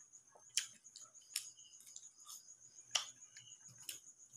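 Faint, sharp mouth clicks and smacks from chewing fried food: four or five short ticks spread over a few seconds, the loudest about three seconds in.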